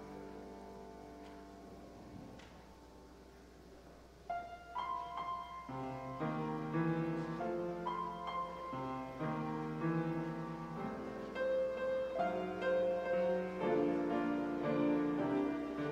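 Grand piano playing a slow piece: a chord fades away over the first few seconds, then a melody over chords begins about four seconds in.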